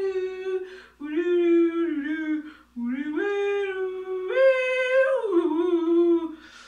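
A woman humming a wordless tune in three phrases, with long held notes that slide up and down between pitches.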